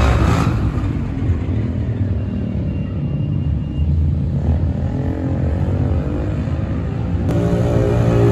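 Motorcycle with a newly installed aftermarket exhaust, engine running with an even, low pitched note that jumps louder about seven seconds in.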